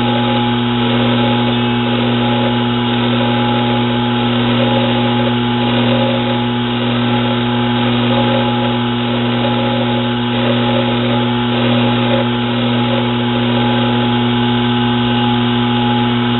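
Metal lathe running at a steady speed, its motor giving a constant hum with an uneven, grainy noise on top as the tool bit takes a facing cut across a steel nut.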